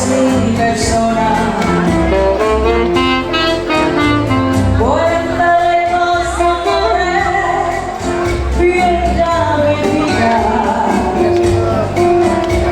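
Band music with a singer over a steady bass beat; a sung line slides up in pitch about five seconds in.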